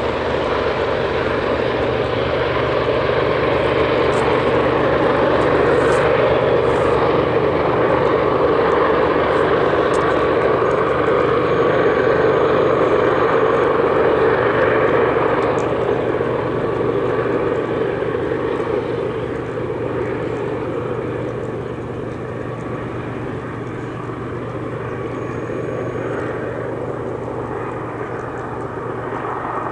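CSX diesel-electric locomotives on a coal train running under load, a steady heavy engine drone. It grows louder over the first few seconds, holds, and eases off after about eighteen seconds.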